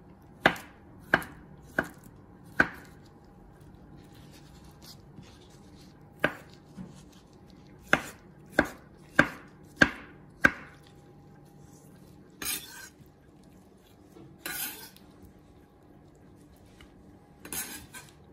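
A chef's knife chopping roasted beetroot on a plastic cutting board: sharp knocks of the blade striking the board, four in the first few seconds, then six more after a pause. Three short, hissier sounds follow in the second half.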